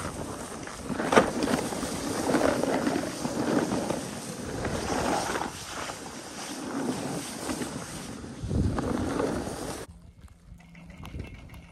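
Snowboard sliding over snow with wind buffeting the microphone: a rushing noise that swells and fades every second or two, with a sharp knock about a second in. It cuts off abruptly near the end.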